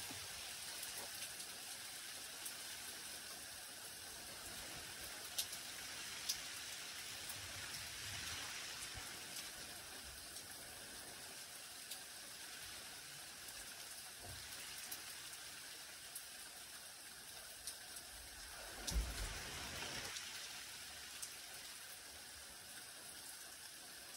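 Light rain falling on garden leaves and soil: a steady soft hiss with scattered sharper drop ticks. About three-quarters of the way through there is a single dull thump, the loudest sound.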